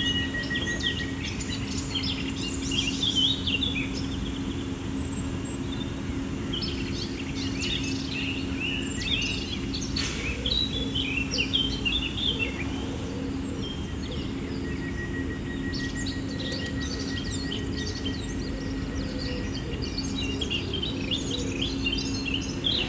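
Birds chirping and singing in three spells of quick, high chirps, over a steady low hum and a faint steady high tone that drops out for a while and returns about two-thirds through.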